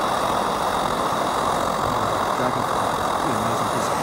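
MSR Dragonfly white-gas stove burning steadily under a pot: a constant, even roar from the pressurised burner.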